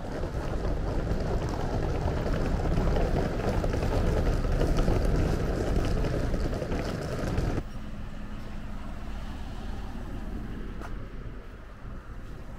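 Road traffic on a town street: a loud, steady rush of passing cars. It cuts off suddenly about two-thirds of the way through to quieter street ambience with a faint steady hum.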